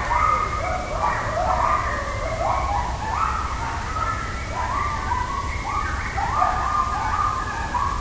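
A pack of coyotes howling and yipping in chorus: many overlapping calls that slide up and down in pitch, over a steady low rumble.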